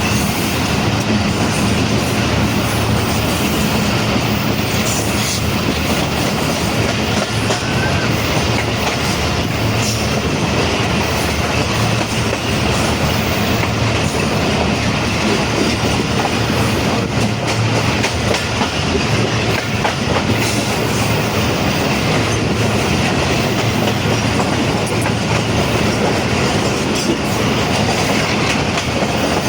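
Train running on the rails: loud, steady noise of wheels on track with faint repeated clicks.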